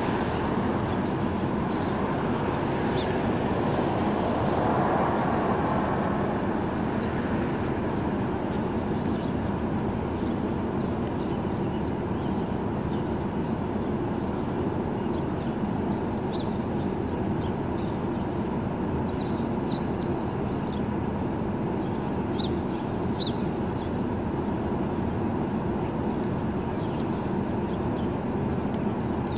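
Steady street traffic noise, swelling a little a few seconds in as a vehicle goes by, with scattered short, faint high chirps.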